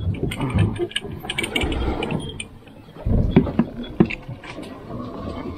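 Fishing reel ratcheting in quick irregular runs of clicks, with a short pause just before the middle, over a low rumble on the boat.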